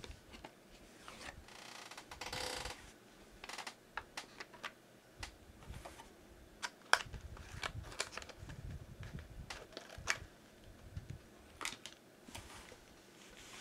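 Small cardboard box and plastic packaging of an N-scale model freight car being opened by hand: scattered faint clicks and taps, with a short rustling scrape about two seconds in.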